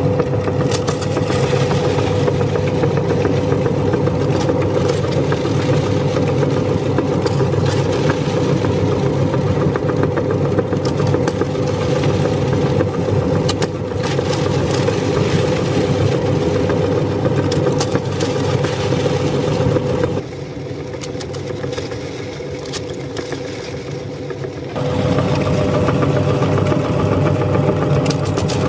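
Motor-driven meat grinder running, a steady motor hum under many sharp cracks as the auger crushes crunchy cookies through the cutting plate. About two-thirds through it goes quieter and the hum drops out for a few seconds, then picks back up.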